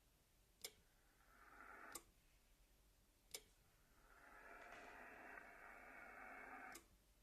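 Hiss of radio-frequency interference on the 80-metre band from a ham radio receiver's speaker, switched in and out with sharp clicks. Twice the noise swells up after a click and is cut off at the next click: the X-PHASE QRM eliminator being toggled to null the interference.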